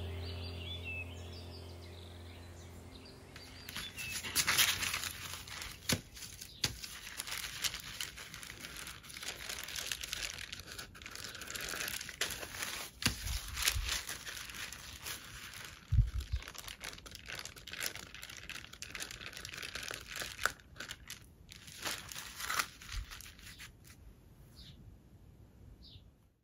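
A stack of folded tracing-paper folios, monoprinted and dried, crackling and crinkling as hands flex and handle it. The crackle is irregular, with sharp snaps. It starts a few seconds in, after some music fades out, and stops shortly before the end.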